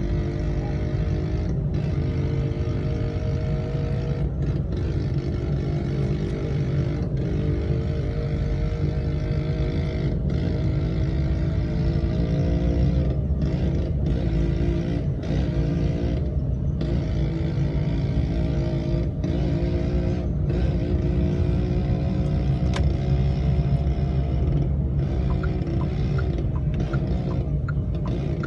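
Old Vespa scooter's two-stroke engine running steadily, its pitch wavering a little as the revs change, over a heavy low rumble.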